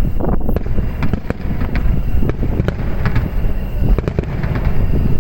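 Fireworks display: aerial shells bursting in rapid, irregular succession, many sharp bangs over a continuous low rumble of overlapping explosions.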